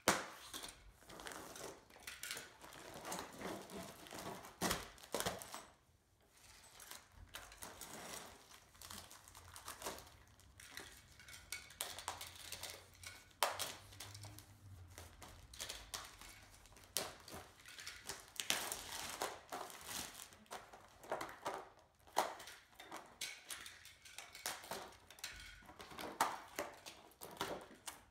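Clear plastic wrap being slit with a box cutter and pulled and crumpled off a folded wire shopping cart: crinkling, rustling film with many irregular clicks and light knocks, briefly easing off about six seconds in.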